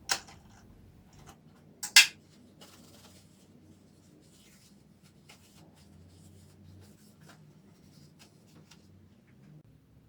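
Two sharp knocks about two seconds apart, the second the louder, followed by faint scattered clicks and light rubbing.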